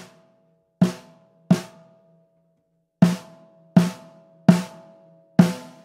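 Snare drum struck with a stick seven times, three hits and then four after a short pause, its snare wires tightened super tight. Each hit has a short buzz and leaves a steady ringing tone hanging after it: the drum's ring brought out because the tight, short wire buzz no longer hides it.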